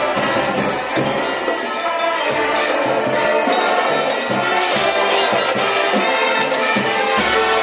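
Music with jingle bells ringing through it.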